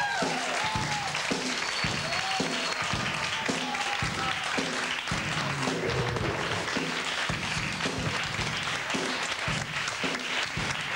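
Studio audience applauding over the show's theme music, which has a steady beat.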